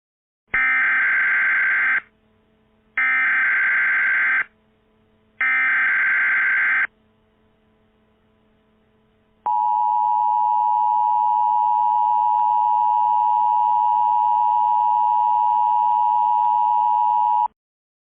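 Emergency Alert System tones: three identical bursts of SAME digital header data, each about a second and a half with a short pause between. These are followed by the EAS two-tone attention signal, held steady for about eight seconds and cut off abruptly, which signals that an emergency voice message follows.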